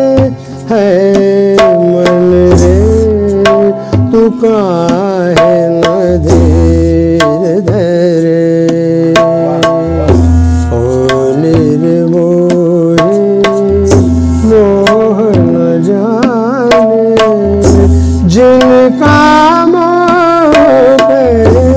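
Harmonium and tabla playing an instrumental passage of a bhajan. The tabla strikes steadily under the harmonium melody, and the deep bass drum (bayan) sounds a low stroke about every four seconds.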